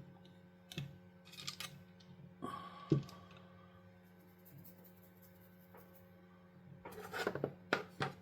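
Scattered light clicks and taps of small plastic game-controller parts being handled and fitted back into the shell, the sharpest about three seconds in and a quick run of clicks near the end, over a faint steady hum.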